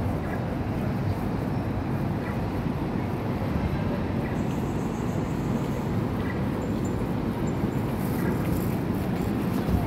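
Steady low rumble of city street traffic, with buses and cars running along the road.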